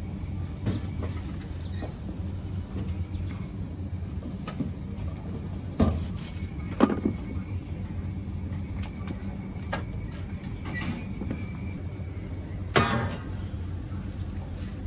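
Steady low mechanical hum in the background, with a few sharp clinks and knocks as fruit and steel trays are handled, the loudest a metallic clank near the end.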